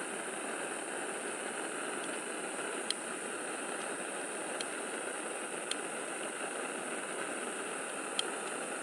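Steady forest ambience: an even rushing hiss under a constant high-pitched drone, with four faint ticks spread through it.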